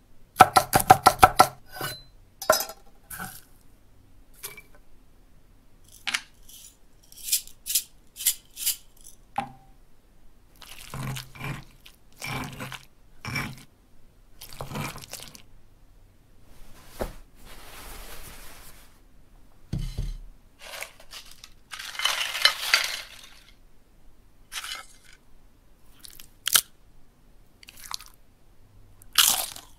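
A series of short crunches, clicks and knocks: a fast run of clicks in the first two seconds, scattered crunches and sharp knocks after that, and a longer scraping hiss about three-quarters of the way through.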